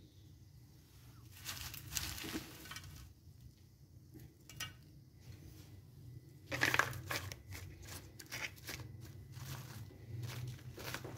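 Crisp fried potato sticks being scraped out of a flat pan and dropped into a paper-lined plastic lunchbox, with crunchy scraping and paper crinkling. It comes in two spells: a short one about a second in, and a longer, louder one from about six and a half seconds in.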